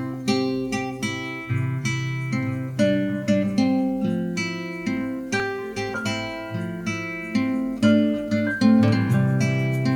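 Background music of plucked acoustic guitar, a steady stream of picked notes.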